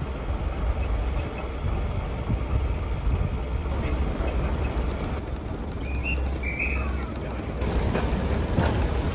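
Heritage diesel multiple unit heard from on board as it moves off: steady low diesel engine rumble with wheel and rail noise, and a couple of brief high chirps about six seconds in.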